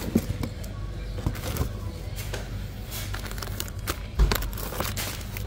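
Soft plastic packs of baby wipes rustling and knocking as they are handled and shifted on a store shelf, over a steady low background hum. A louder dull thump comes about four seconds in.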